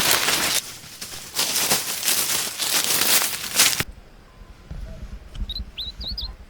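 Loud, dense rustling and crinkling with many sharp crackles, like dry plant material being handled or torn. It cuts off abruptly about four seconds in, leaving a quiet low rumble and a few short, high chirps.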